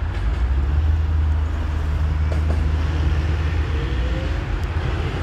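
Steady low rumble of road traffic, a motor vehicle running nearby.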